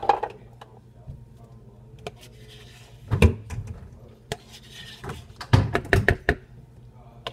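Kitchen utensils clinking, knocking and scraping against bowls and containers while an ingredient is measured and added to cake batter. There are irregular sharp taps, with a bunch of knocks about five to six seconds in.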